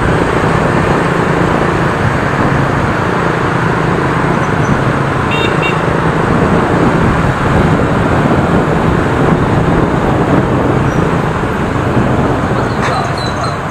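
Dense motorbike and scooter traffic heard from a moving motorbike: steady engine and road noise, with a brief horn toot about five seconds in.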